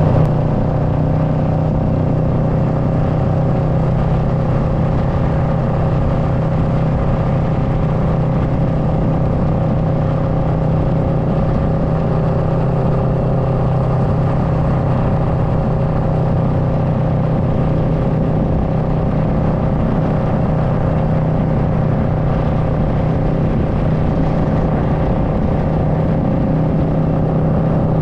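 Kawasaki Versys 650's parallel-twin engine running at a steady cruise, its pitch holding even, with wind rushing over the microphone.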